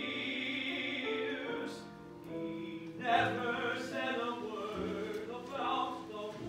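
A male opera singer sings an aria in long held notes with vibrato over sustained instrumental accompaniment.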